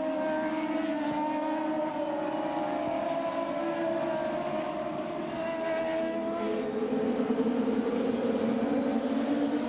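A pack of turbocharged Indy cars running at full throttle on the opening racing lap. Many engine notes overlap, their pitches sliding as the cars pass and shift. The sound grows fuller and a little louder about two-thirds of the way through as the field comes closer.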